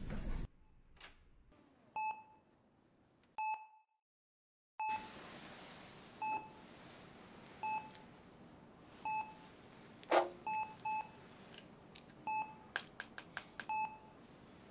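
Hospital patient monitor beeping steadily, one short tone about every second and a half. Between the beeps come a few sharp clicks and a knock from a small pill bottle being handled.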